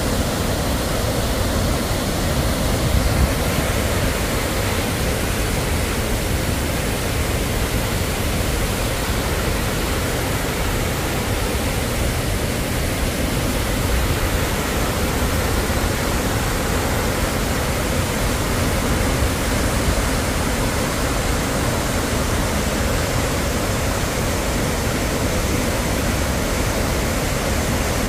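Dhuandhar Falls on the Narmada River: a steady, loud rush of water pouring over rock ledges.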